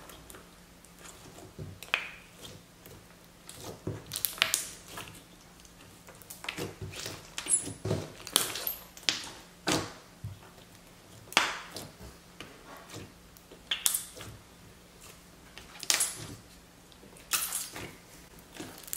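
Clear jelly cube slime, with cubes of melamine eraser sponge mixed in, being pressed and squeezed by hand. It gives irregular sharp squishy pops and crackles every second or so.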